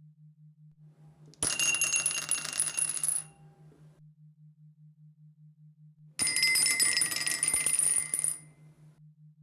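Dice rattling twice, each time a dense clatter of clicks with bright ringing tones that lasts about two seconds. The first starts about a second and a half in, the second about six seconds in.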